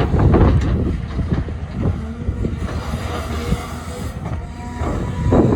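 Excavator working: its diesel engine running under a heavy rumble, with irregular metal clanks and rattles. The clatter is loudest at the start and again near the end.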